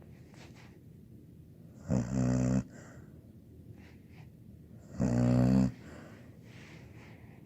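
Labradoodle snoring in her sleep: two loud snores about three seconds apart, each under a second long, with quieter breaths between.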